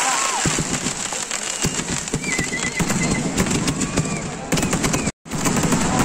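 Firecrackers going off in a dense, rapid string of crackling bangs, with crowd voices underneath.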